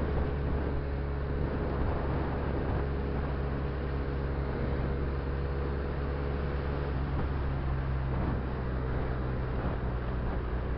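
Benelli TNT300 (BN302) motorcycle's 300 cc parallel-twin engine running at a steady cruise, under an even haze of wind and road noise.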